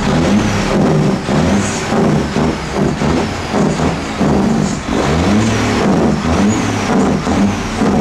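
Big-rig diesel engine revved in repeated bursts, its pitch climbing and falling back again and again.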